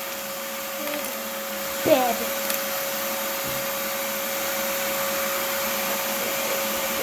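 Steady motor hum with a constant whine, unchanging, from an appliance or fan running in the room; one short spoken word about two seconds in.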